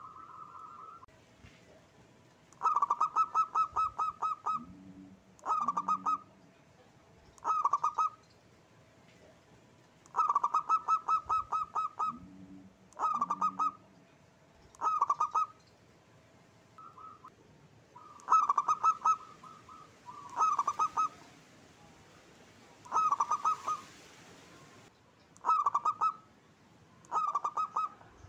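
Zebra dove (perkutut) calling: repeated phrases of rapid staccato cooing notes, a new phrase every two to three seconds. Twice a long phrase is followed by two deep, low coos.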